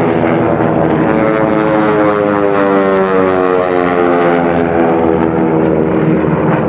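AT-6 Texan race planes passing at full power: the drone of their Pratt & Whitney R-1340 nine-cylinder radial engines and propellers, its pitch falling slowly as they go by.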